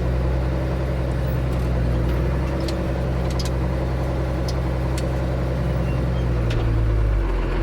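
Ford 9700 tractor's six-cylinder diesel engine running at a steady speed while the tractor is bogged in a wet patch of field. A few faint clicks sound over it.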